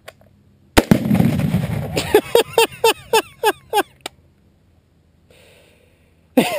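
A rifle shot sets off a Tannerite binary exploding target: a sharp crack about a second in, then a loud blast with a low rumble that dies away over about a second.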